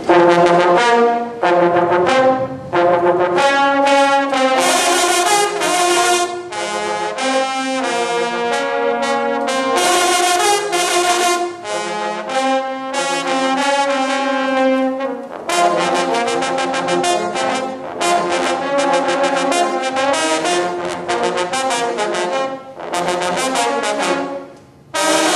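A section of marching baritone horns playing a loud fanfare in unison and harmony, mostly short, punchy notes with a few held chords, cutting off sharply at the end.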